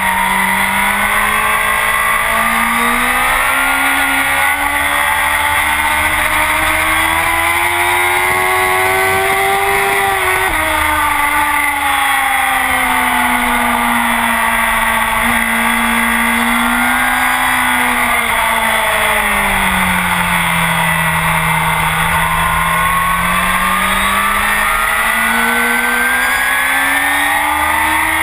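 Honda CBR1000RR inline-four sportbike with a full Akrapovic exhaust at speed on a racetrack. The revs climb steadily, drop suddenly about ten seconds in, then fall and rise again in long sweeps through the corners.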